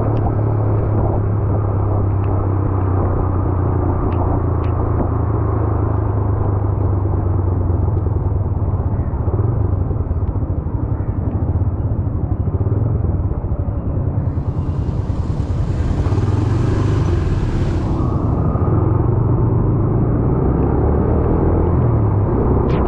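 Motorcycle engine running steadily while riding, with a low rumble. A hiss joins in about fifteen seconds in and stops about three seconds later.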